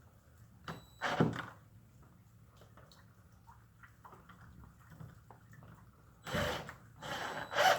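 Short knocks and scraping bursts as a door latch is fitted to a shop door: one burst about a second in, then a quick run of several near the end, with faint ticks of handling in between.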